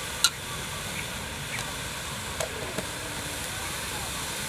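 A metal spoon clinks sharply once against an aluminium cooking pot, followed by a few lighter utensil clicks, over a steady hiss from the pot cooking on its fire.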